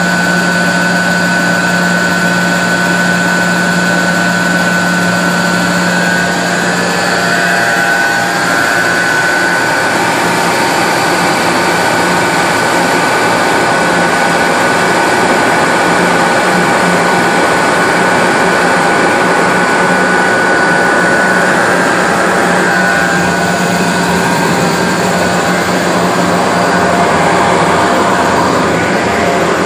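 1966 Cleaver Brooks oil-fired boilers running: a loud, steady machine roar from the burners and their motors, with a steady low hum and a high whine that fades out about two-thirds of the way through.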